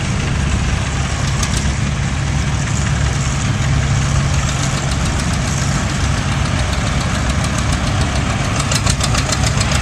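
Engines of antique farm tractors running steadily as they drive past one after another, with a constant low hum. Near the end a fast, regular ticking beat comes in.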